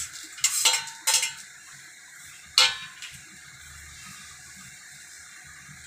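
A metal spoon clinks against a steel plate and the rim of a metal kadhai as roasted peanuts are scraped into the poha: three sharp clinks in the first three seconds, the last the loudest. After that only a low steady hum remains.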